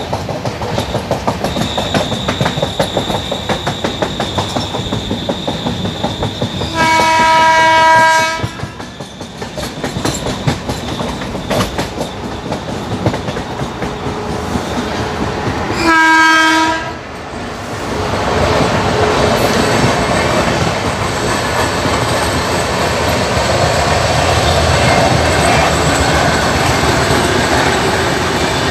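Express train running at speed, heard from an open coach door: a rapid clickety-clack of wheels over rail joints, broken by two loud electric-locomotive horn blasts of a second or so each, about seven and about sixteen seconds in. From about eighteen seconds the rushing noise grows denser as a parallel train's coaches run alongside.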